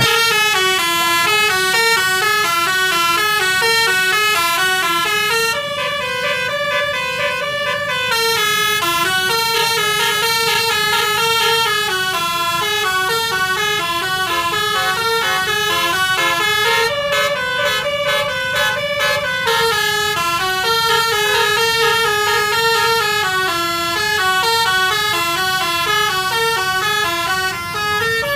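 Multi-tone Basuri telolet horn playing a tune, its notes stepping up and down in quick succession without a break.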